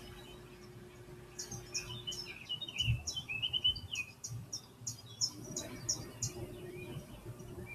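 Small birds chirping in quick, short calls from a bird video playing through computer speakers, with a low bump about three seconds in.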